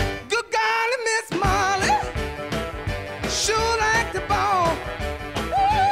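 Upbeat background song with a sung melody over a steady beat; the bass drops out briefly about a second in.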